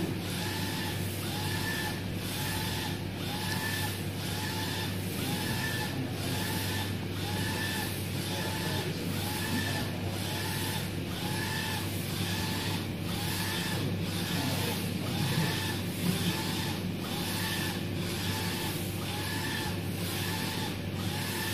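UV flatbed printer running a print job: the print-head carriage shuttles back and forth, its motor whining up and down with each pass, about one pass every three-quarters of a second, over a steady low hum.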